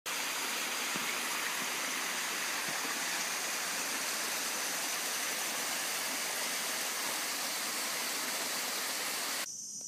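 Water of a rocky jungle stream rushing over the rocks: a steady, dense hiss. It cuts off sharply near the end.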